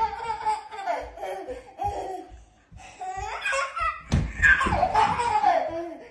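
A person laughing in repeated bursts, with a short break near the middle and a louder burst of laughter after it.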